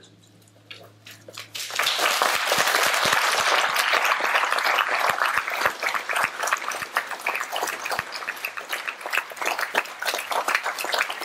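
Audience applauding at the end of a lecture: a few scattered claps, then many hands clapping together from about two seconds in, thinning slightly toward the end.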